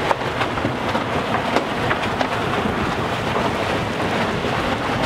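Water rushing along the hull of a sailing yacht under way, with wind buffeting the microphone and a few light clicks and knocks.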